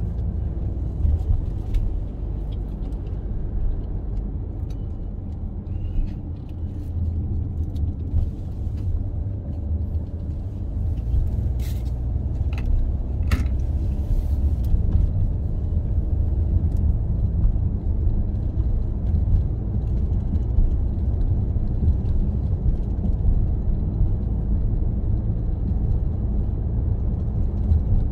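Car driving along a road: a steady low rumble of tyres and engine, with two short clicks near the middle.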